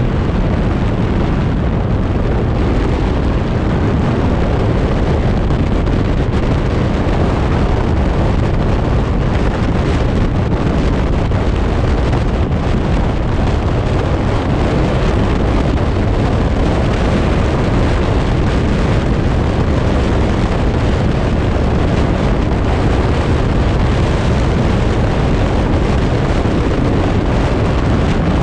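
Steady rumble of wind on the microphone over the road noise of a moving vehicle, unchanging throughout.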